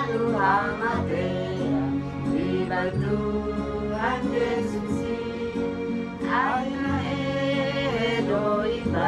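A song: a singing voice over instrumental accompaniment with sustained bass notes.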